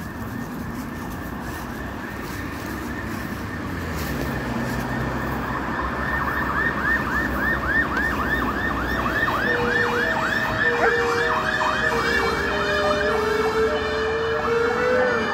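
Ambulance siren growing louder as it approaches, wailing in fast repeating up-and-down sweeps. From about ten seconds in, an Alaskan Malamute howls along in a long, drawn-out note.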